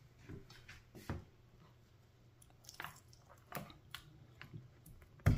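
Whole steamed chicken being pulled apart and cut on a wooden cutting board: faint, scattered wet tearing and squishing of the meat with small knocks of the knife, then one loud knife chop on the board near the end.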